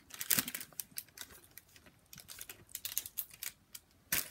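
Irregular soft taps and scratchy rubbing, close to the microphone, as a makeup stick applicator is dabbed and rubbed on the face, with a louder tap just before the end.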